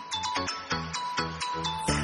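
Background music: a light melody of quick, evenly spaced notes.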